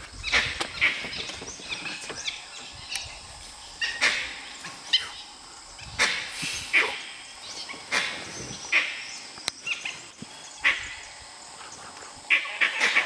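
Dholes (Asian wild dogs) giving short, sharp, high yelping calls, irregular and roughly one a second, as they harass a leopard that has gone up a tree.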